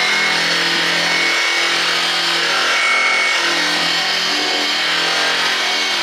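Handheld electric drum polisher running at full speed with its drum scrubbing across a bare aluminum boat hull: a steady motor whine over a loud rasping scrub. It is smoothing out swirl marks in the metal ahead of painting.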